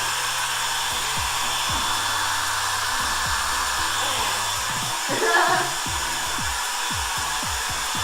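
Hand-held hair dryer blowing steadily on just-cut hair, with a brief voice about five seconds in.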